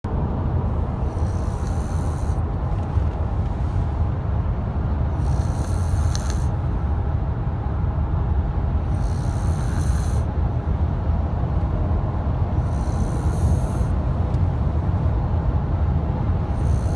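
Snoring: a breathy hiss about every four seconds, each breath lasting a second or so, over a steady low rumble.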